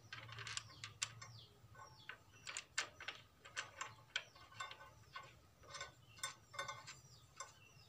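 Faint, irregular metallic clicking of a wrench being worked on a diesel fuel injection pump as the cleaned delivery valve holder is screwed back in.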